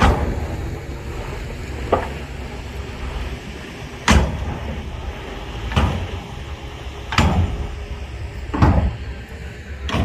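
Heavy diesel machinery running with a steady low rumble, broken by a loud bang about every one and a half to two seconds.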